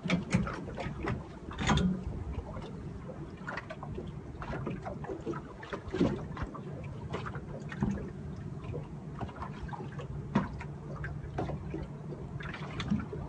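Water lapping and slapping against the hull of a small drifting boat, with scattered sharp knocks and clicks.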